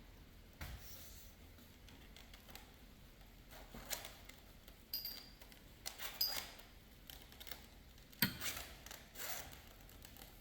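Light clicks, taps and scraping of metal parts being handled as a replacement drive part is pushed through a Stihl string trimmer's shaft tube, with a sharper knock about eight seconds in.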